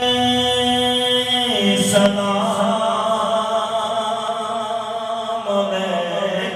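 A man singing a naat, a devotional poem in praise of the Prophet, unaccompanied into a microphone in long held notes. His pitch steps down about a second and a half in and again near the end.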